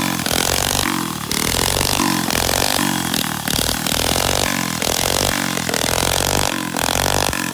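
Coleman CT100U mini bike's small single-cylinder engine revved up again and again, its pitch rising in repeated surges, as the rear tyre spins on the asphalt in a burnout.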